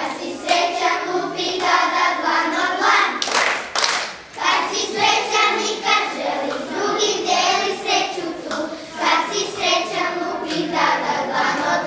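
A group of young children singing a song together, with a couple of sharp claps about three seconds in.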